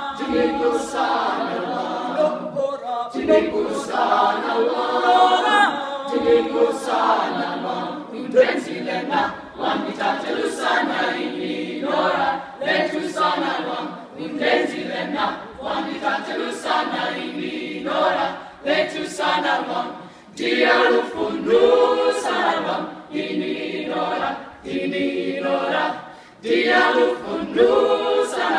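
Choir singing an arrangement of a Xhosa folk song a cappella, many voices together in short rhythmic phrases with brief breaks between them.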